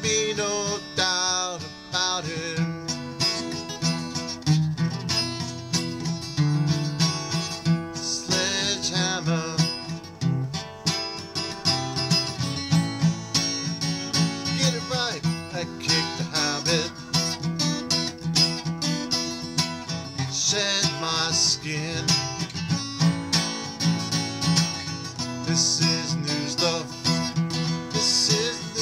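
Steel-string acoustic guitar with a capo, strummed steadily in a rhythmic chord accompaniment.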